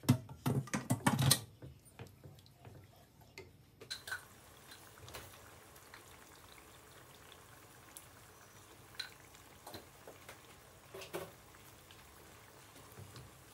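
A spoon scraping and knocking against a pan while stirring thick curry, loud for the first second and a half. Then the curry simmers with faint sputtering and scattered soft pops.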